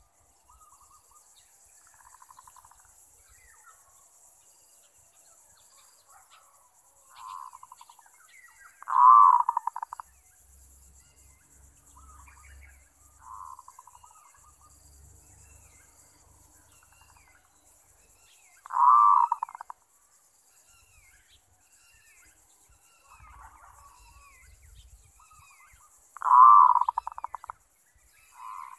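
Zebra dove (merbok) cooing: three loud rolling coo phrases of rapid notes, each about a second long and roughly ten seconds apart, with softer, shorter coos between them. Small birds chirp faintly in the background.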